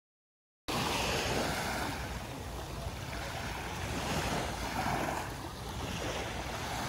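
Small waves washing onto a sandy beach, with a low wind rumble on the microphone. It cuts in suddenly after a moment of silence.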